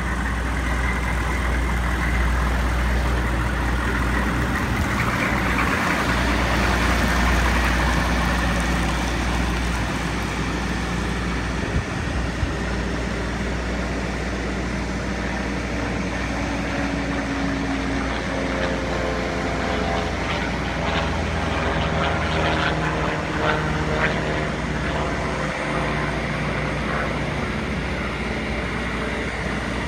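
Soft-serve ice cream truck's engine running as the truck pulls out and drives away, over a steady low hum; engine tones rise and fall in the second half.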